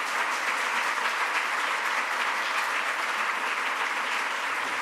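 Lecture-hall audience applauding steadily, sustained clapping welcoming a speaker to the podium.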